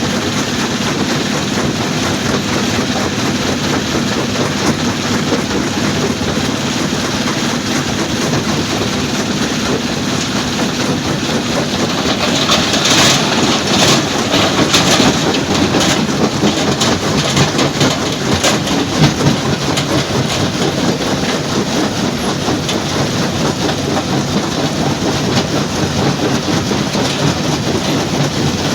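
Stone crushing plant machinery running, a loud steady clattering din. A stretch of harder rattling and knocking stands out from about twelve to nineteen seconds in.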